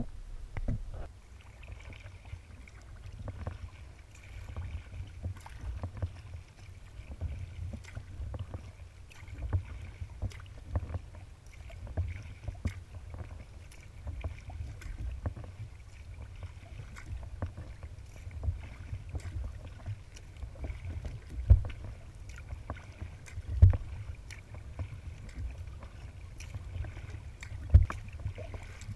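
A kayak being paddled: water lapping and splashing against the hull with the strokes of the paddle, over a steady low rumble. Three sharp knocks stand out in the last third.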